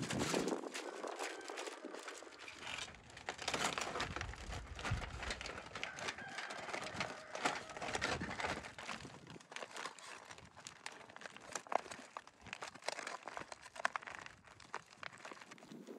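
Aluminium foil crinkling as hands fold and crimp the edges of a foil parcel, an irregular run of crisp crinkles and rustles.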